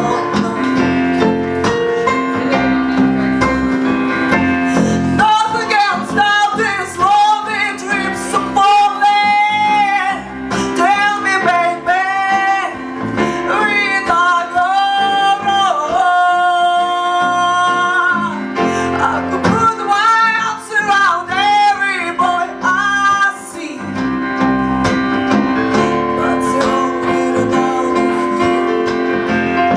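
A song performed live: a singer's vocal line over an instrumental accompaniment. The voice comes in about five seconds in and drops out after about twenty-three seconds, leaving the accompaniment playing alone.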